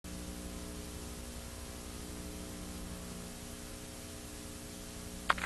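Steady hiss and mains hum from an analogue videotape transfer, with a short click near the end.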